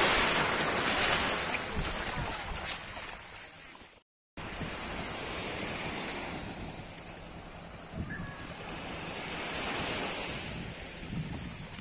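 Small waves washing onto a sandy shore, with wind buffeting the microphone. The surf is loudest at first and fades, cuts out completely for a moment about four seconds in, then goes on more softly with gentle swells.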